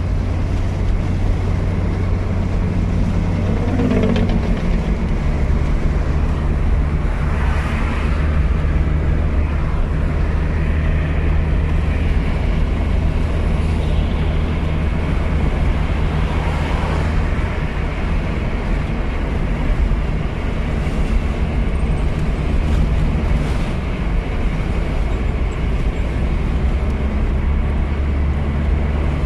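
Engine and road noise heard from inside a moving car: a steady low engine drone over tyre and road hiss. The engine's pitch shifts a few times as the car changes speed or gear.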